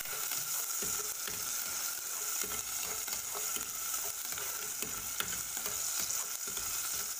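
Chopped aromatics frying in hot oil in an enamel pot: a steady sizzle, with a spatula stirring and now and then clicking against the pot.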